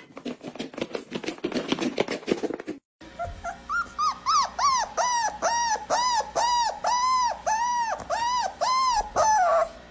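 A dog's claws pattering quickly on a hardwood floor as it runs. Then, after a cut, about a dozen high dog whines, each rising and falling in pitch, about two a second.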